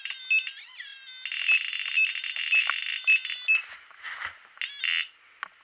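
Homemade ghost-hunting DC box with a built-in static detector, giving off a steady electronic tone with short bleeps about every half second. Near the end it turns to crackling static, which cuts off suddenly.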